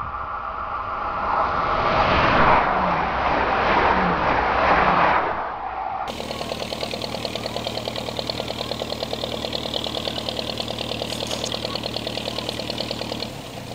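A train passing on the line: a loud rushing rumble that builds and fades over a few seconds. After an abrupt cut comes a steady mechanical pulsing, about three to four beats a second.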